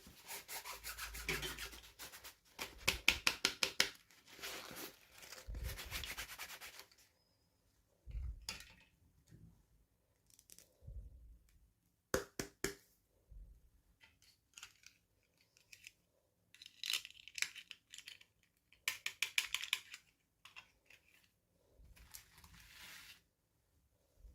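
Packaging being rubbed, crinkled and torn open by hand in several bursts of a few seconds each, with two sharp clicks about twelve seconds in.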